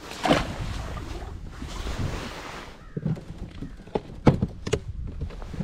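Wind buffeting the microphone and water lapping around a kayak, with a short splash just after the start and a few sharp knocks about four seconds in.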